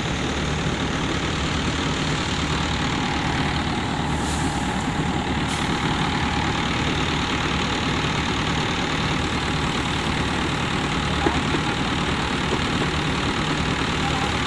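Tractor-driven paddy thresher running steadily: the tractor engine and the thresher's drum make a constant, even machine noise while bundles of rice straw are fed in.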